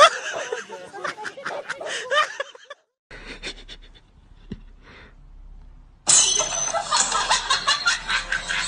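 Men laughing and calling out in quick bursts, then a quiet stretch with faint rustling and one soft tick, and from about six seconds in loud music starts abruptly.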